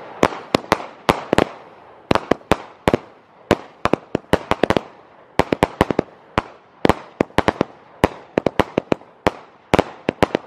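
Three consumer firework cakes firing together: an irregular, rapid string of sharp bangs from shells bursting overhead, often several in quick succession, each with a short echoing tail.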